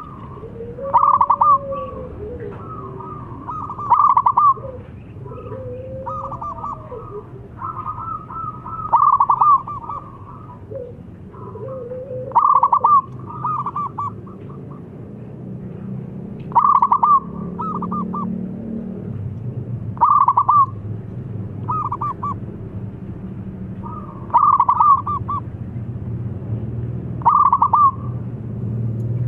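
Zebra dove (perkutut) cooing: short, rapid, stuttering phrases repeated about every two to four seconds. Fainter gliding calls come in the first several seconds, over a steady low background hum.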